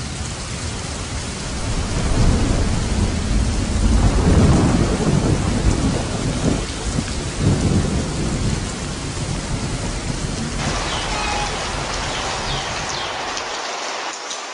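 Steady heavy rain with low rumbling thunder, loudest in the first half. A few short chirps come through the rain near the end.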